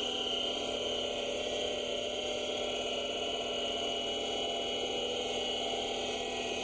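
7x16 Micro-Lux variable-speed mini lathe running steadily while its CNC slide tool cuts barbs into a 12L14 steel tube fitting. It makes a steady machine whine with several tones held throughout.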